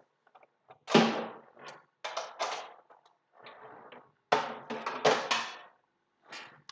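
A series of sudden knocks and bumps, about six over several seconds, each starting sharply and fading out. The loudest come about a second in and again about four and a half seconds in.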